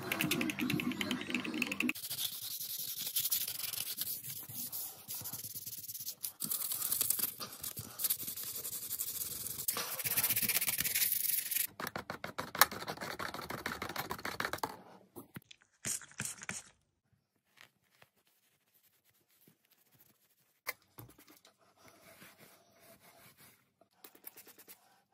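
Wooden stir stick scraping rapidly around a plastic cup as epoxy resin is mixed, a dense scratchy rasp for about the first fifteen seconds. After that only a few faint clicks and knocks.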